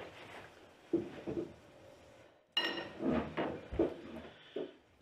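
Spoons clinking and scraping against breakfast bowls, with dishes knocking on a table; a few scattered clinks and one brighter, ringing clink about two and a half seconds in.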